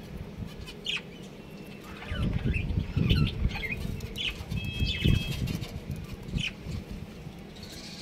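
Budgerigars chirping in short, scattered calls, with a couple of brief whistled notes near the middle. A low rumbling noise sits underneath from about two seconds in and is loudest around the middle.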